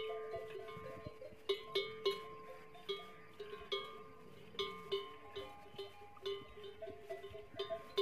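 Bells worn by a herd of camels clanking irregularly as the animals shift about, several bells of different pitch striking a few times a second and ringing on between strikes.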